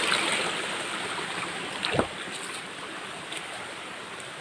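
Flowing stream water, a steady rush that grows fainter, with a brief thump about two seconds in.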